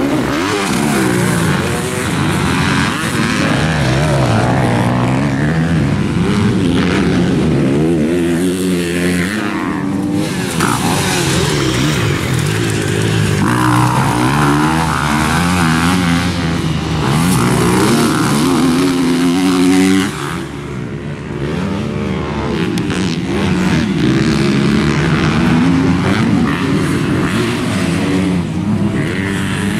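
250-class motocross dirt bike engines racing, several at once, revving up and falling back over and over as the riders accelerate out of corners and shift. The sound dips briefly about two-thirds of the way through.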